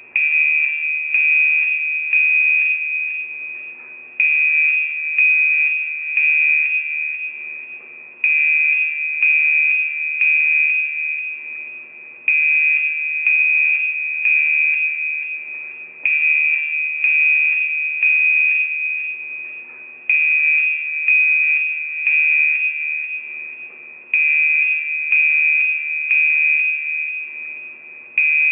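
Fire alarm evacuation signal: a high electronic tone pulsing in groups. Each group starts loud and fades, and a new group begins about every four seconds.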